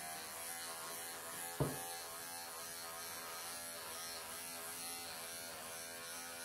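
Electric pet clippers buzzing steadily as they shave a Persian cat's coat, with one brief soft thump about a second and a half in.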